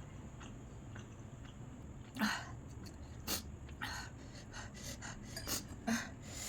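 A person's quick, sharp breaths and sniffs, in a string of short bursts starting about two seconds in, as a reaction to the burning heat of very spicy noodles.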